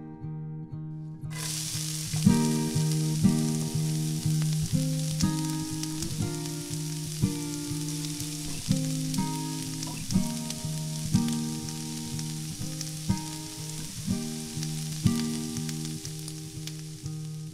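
Fish frying in hot oil in a miniature steel pot. A loud sizzle starts suddenly about a second in, as the fish goes into the oil, and fades near the end, over steady acoustic guitar background music.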